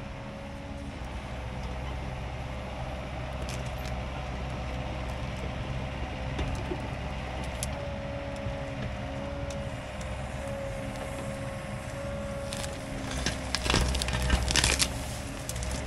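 An excavator's engine and hydraulics run steadily while the ripper tooth swings, with a held tone that wavers slightly in pitch. About three seconds before the end, a burst of cracking and scraping comes as the ripper tears into the ground and roots.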